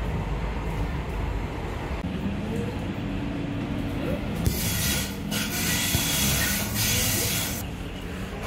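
Tram running, heard from inside the car: a steady low rumble of wheels on rail, with a loud hiss for about three seconds from about halfway in.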